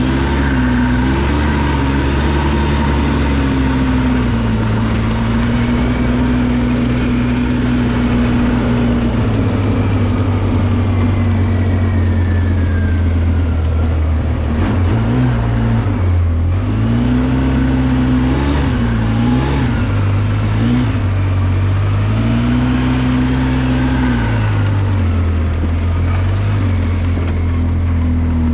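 2005 Polaris Sportsman MV7 military ATV engine running under way, its pitch dropping and climbing again several times as the throttle is eased and reopened.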